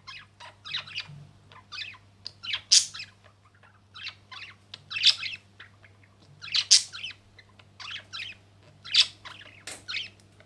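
A bird calling in a run of short, sharp chirps and squawks, with the loudest calls coming about every two seconds over a faint steady low hum.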